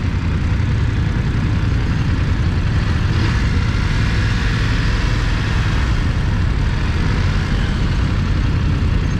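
Motorcycle engine running at low speed while filtering through slow, heavy traffic, a steady low rumble with the noise of surrounding cars.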